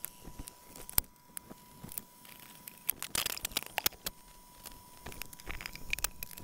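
Scattered light clicks and taps of small metal bolts and a hand tool as a plywood panel is fitted and bolted into a powder-coated steel frame.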